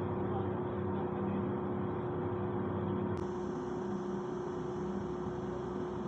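Steady drone of running machinery in a ship's machinery space, with a few steady hum tones. About three seconds in the background changes abruptly and takes on a higher hiss.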